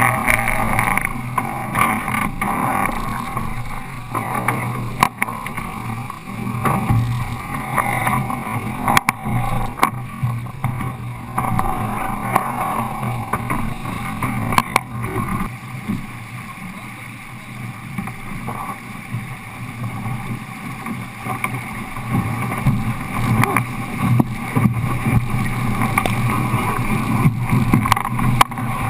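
Wind and water noise aboard a Longtze sailboat under way, with a steady low rumble and a few sharp knocks from the boat and its gear.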